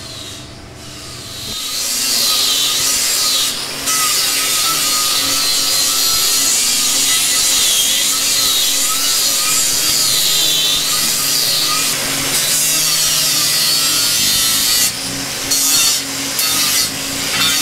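Handheld electric grinder shaping the edge of a G10 fibreglass fin. It starts about a second and a half in, and its whine wavers up and down as the disc is worked against the fin, with a few short breaks near the end.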